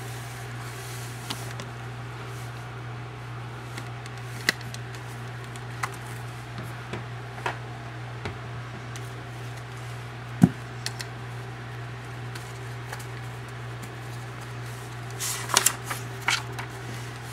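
Handling noise from cardboard coin folders and the camera: scattered light clicks and taps, one sharp click about ten seconds in, and a quick run of cardboard and paper rustling and clicks near the end, over a steady low hum.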